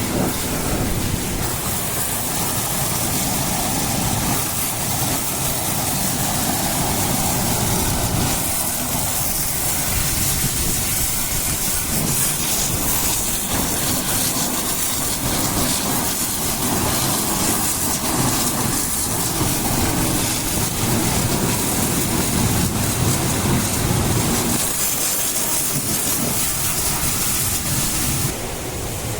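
Water jet spraying onto a backhoe loader during a wash: a steady, loud hiss of water drumming on the machine, over a low rumble.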